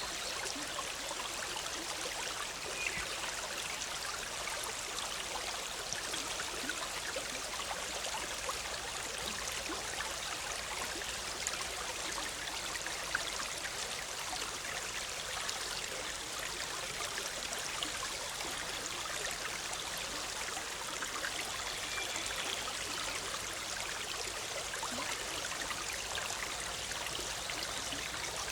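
Forest stream babbling and splashing steadily over rocks, an even rushing sound flecked with small gurgles and drips.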